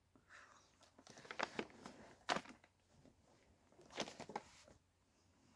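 Faint chewing and wet mouth sounds as a gummy sweet is eaten, with soft clicks and smacks, then a brief cluster of handling noise about four seconds in.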